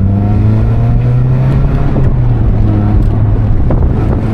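Mazda Miata's engine running at speed on the road, its pitch climbing a little in the first second and then holding steady, with wind and road noise.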